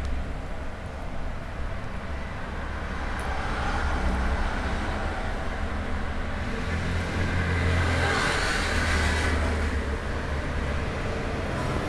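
Low, steady rumble of passing road traffic, with one louder swell about eight seconds in.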